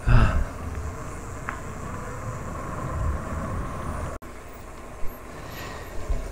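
Wind rumbling on the microphone and tyre noise of a loaded touring bicycle rolling along a paved lane, with a stronger gust right at the start.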